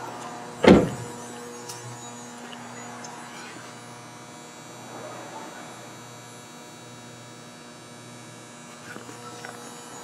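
A car door slams shut about a second in, followed by a steady low hum with faint held tones.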